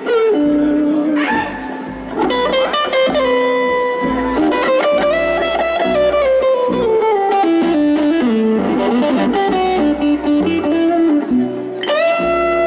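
Southern rock band playing live, an electric guitar taking an instrumental solo: a melodic line of held and sliding notes over bass and drums.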